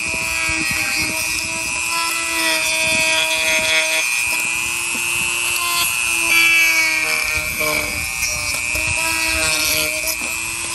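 TACKLIFE RTD35ACL rotary tool running with a polishing stone bit held against the edges of thin plywood, smoothing off jagged corners. A steady motor whine that wavers a little in pitch now and then, over the hiss of the stone rubbing the wood.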